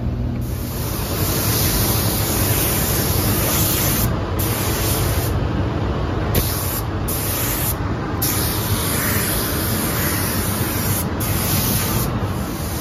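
Compressed-air paint spray gun hissing as paint is sprayed onto a motorcycle gas tank and side covers, the spray cutting out briefly about six times as the trigger is let off between passes, over a steady low rumble.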